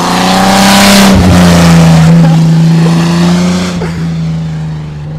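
A car driving past close by: its engine note swells to a loud peak, drops slightly in pitch as it goes by, and then fades away.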